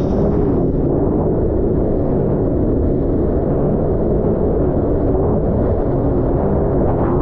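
Sea-Doo personal watercraft engine running steadily under way, heard as a muffled low rumble with a faint steady engine tone and almost no hiss of wind or spray.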